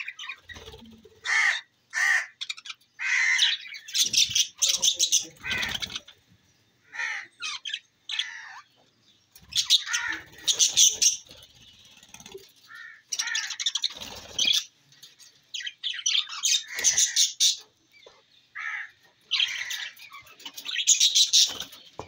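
A flock of budgerigars calling: bursts of scratchy chirps and chatter, each a second or two long, with short pauses between them.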